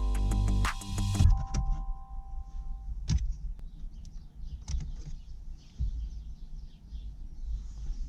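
Background guitar music ends about a second in. After it come a few faint clicks and knocks over a low hum.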